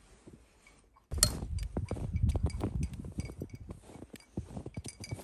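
Clinking, rattling and knocking as a bird feeder is handled and something is fitted into it. The rapid, irregular clicks start about a second in, over a low rumble of handling.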